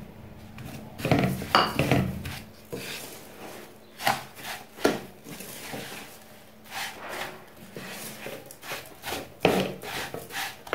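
Wooden spatula scraping sugar out of a bowl and then stirring cut raw mango pieces and sugar in a non-stick kadhai. It makes irregular scraping and rubbing strokes, with the loudest cluster about a second in.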